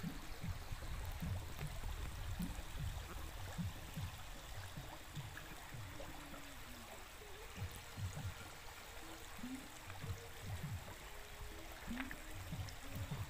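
A shallow stream trickling and babbling over rounded stones, an even watery hiss, with an uneven low rumble underneath.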